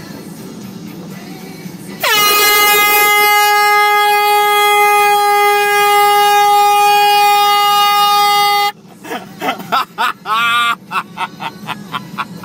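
Air horn blasting continuously for about seven seconds: one loud, steady blaring tone that starts about two seconds in and cuts off suddenly. After it come short bursts of a person's voice.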